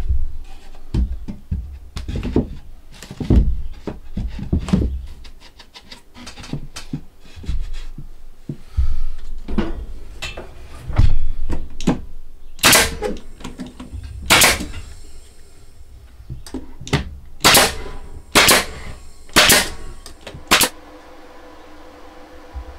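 Irregular knocks, clunks and clicks of boards and tools being handled, with about six sharp, loud knocks in the second half. A faint steady hum sets in near the end.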